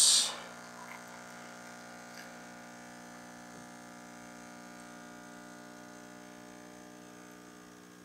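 Rancilio Silvia's vibratory pump humming steadily as it pushes water through the coffee puck during an espresso extraction.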